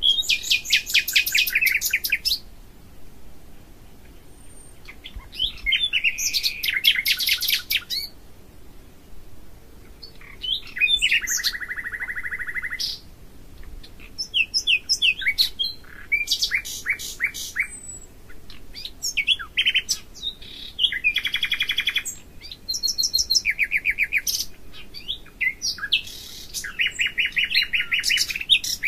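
A songbird singing: about seven phrases of fast trilled notes, each two to three seconds long, with short pauses between them.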